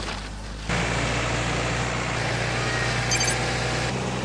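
An engine running steadily at idle, a low hum under a hiss, coming in suddenly just under a second in.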